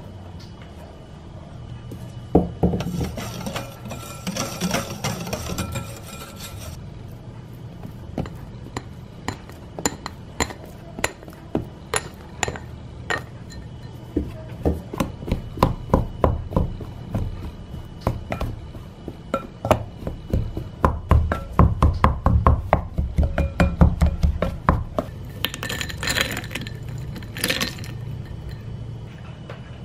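A utensil clicking and tapping against a glass mixing bowl in a quick, uneven run, cutting cold butter cubes into flour for pie crust, over background music.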